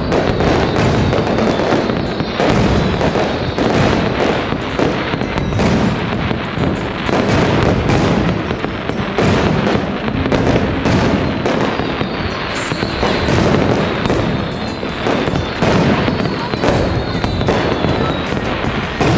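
Fireworks display with aerial shells bursting overhead in quick succession: a continuous barrage of bangs and crackling, with a few faint falling whistles in the second half.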